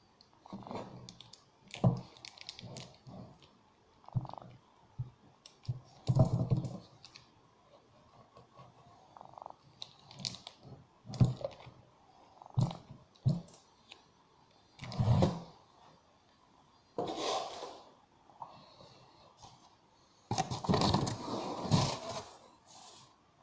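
Handling noises from unpacking a Kawai triple pedal unit: irregular knocks and clicks, with a few longer rustles and scrapes of cardboard and plastic wrapping.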